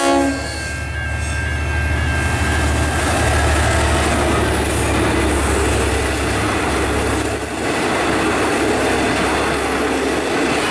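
V/Line N-class diesel locomotive, with its EMD two-stroke diesel engine, passing close by with a steady low drone, followed by its passenger carriages rolling by with a continuous rumble of wheels on rail. A chord of high tones drops in pitch and stops right at the start, and the engine drone fades about seven seconds in while the carriage noise carries on.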